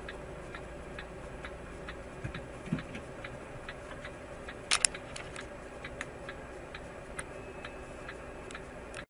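A car's turn-signal indicator ticking evenly, about two ticks a second, inside the cabin over a low hum. It is joined by a dull thump and, a little before halfway, two sharper clicks.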